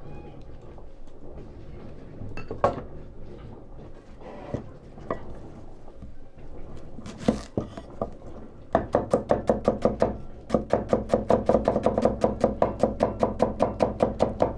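Kitchen utensil striking fast and evenly, about five strokes a second, starting a little past the middle with a short break soon after. Before that, a few scattered knocks and clatter of kitchenware.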